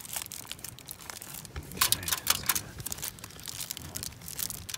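Crinkling and crackling of plastic packaging as a bubble-mailer pouch insulator and the dehydrated-meal pouch inside it are handled and opened, in a run of sharp crackles that are loudest about two seconds in.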